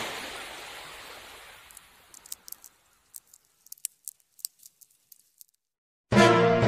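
Cartoon sound effects: a swoosh of noise fading away, then a scatter of light, irregular high clicks as a crab scuttles over sand. Dramatic music with timpani cuts in loudly near the end.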